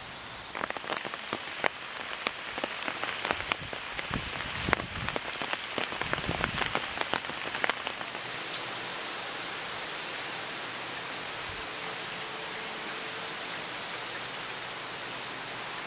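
Rain falling on wet pavement, with many loud separate drops splashing close by for the first half, then settling into a steady hiss of rain.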